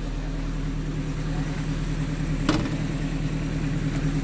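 A motor running steadily with a low hum, and one sharp knock about two and a half seconds in.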